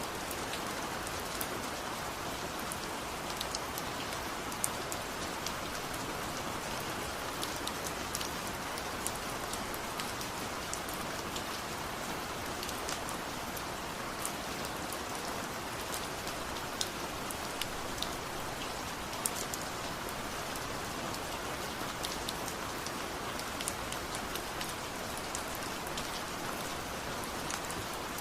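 Steady rain falling on hard surfaces, an even hiss broken by scattered sharp drops ticking close by.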